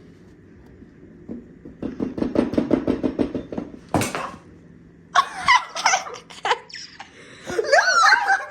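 Batter being stirred fast in a bowl, the utensil clattering against the bowl several times a second for about a second and a half, followed by a single sharp knock. Then laughter breaks out twice, loud and wavering.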